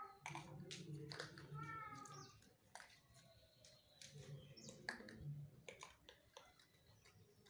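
Puppies whimpering faintly: a couple of short, high whines in the first two seconds, among scattered soft clicks.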